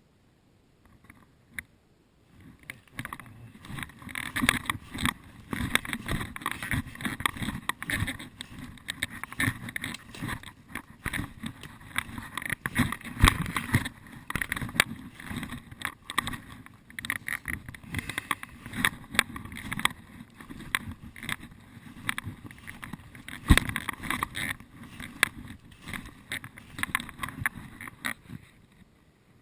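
Footsteps crunching through dry leaves and brush: irregular rustling and crackling that starts about two seconds in.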